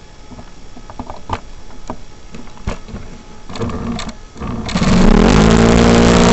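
Glow-fuel four-stroke engine of a NexSTAR 46 RC plane being started: a few handling clicks, a short buzz of cranking, then the engine catches about three-quarters of the way through and runs loudly and steadily.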